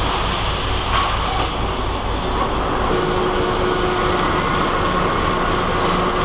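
Steady low rumble of engines and machinery in a busy fish-market unloading area, with a faint steady hum over it.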